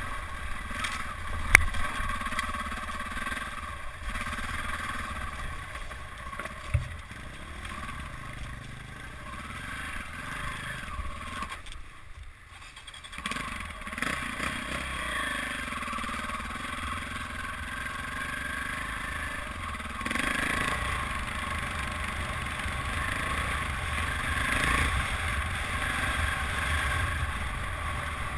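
Dirt bike engine running on a rocky singletrack trail, the throttle opening and closing, heard from the rider's helmet camera. A sharp knock about a second and a half in and a smaller one near seven seconds; around twelve seconds in the engine sound nearly drops away for about a second before picking up again.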